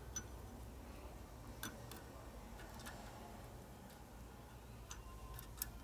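A few sharp, scattered metallic clicks and ticks as bearing parts are handled and fitted into a Harley star wheel hub, over a faint steady low hum.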